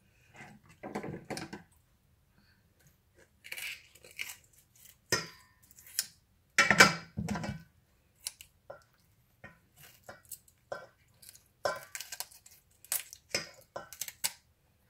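Kitchen scissors cutting raw chicken into pieces over a stainless steel bowl: irregular snips and crunches, with a louder cluster about halfway through.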